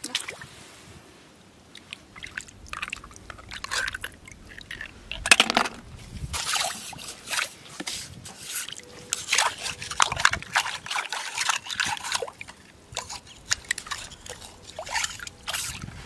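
Shallow seawater sloshing and splashing in irregular bursts around rubber boots and metal tongs, with sharp knocks as shellfish are picked up and dropped into a plastic bucket. The loudest knock comes about five seconds in.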